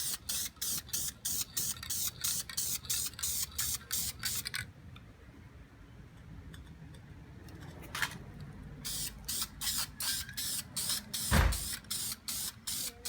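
Aerosol can of VHT engine enamel spraying in quick short bursts, about two to three a second, pausing for a few seconds midway. A single heavy low thump comes about eleven seconds in.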